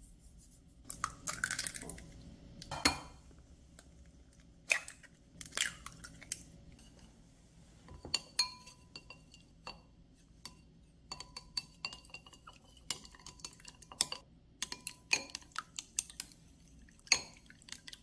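Chopsticks clinking against a glass bowl while beating raw eggs: many quick, irregular light clinks with a brief ringing tone, after a few duller knocks in the first seconds.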